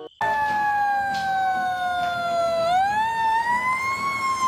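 Fire engine siren wailing: one tone that slowly falls, then rises again about two and a half seconds in and levels off.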